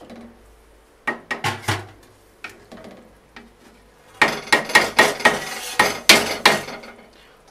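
Metal spoon stirring curry in a steel pot, clinking and scraping against the pot's sides: a few sharp knocks about a second in, then a longer run of clatter from about four to seven seconds.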